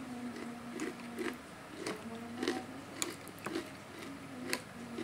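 Close-up eating of ketoprak: chewing with sharp crunches and wet mouth clicks, irregular, a few per second. Behind it is a steady low hum that drops out now and then.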